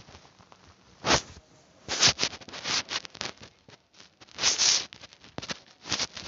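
Close rustling and scratching from a cat playing at a string on a person's lap, in irregular bursts: one about a second in, a cluster from two to three seconds, another around four and a half seconds and one near the end.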